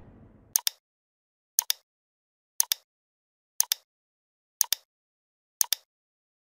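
Sharp double clicks, like a clock's tick-tock, repeating six times at about one a second: an edited-in ticking sound effect. The tail of a whoosh fades out at the very start.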